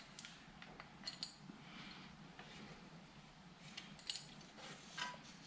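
Faint metallic clinks and taps of hand tools against engine parts, a handful of short knocks spread over several seconds, while an oil filter is being worked off.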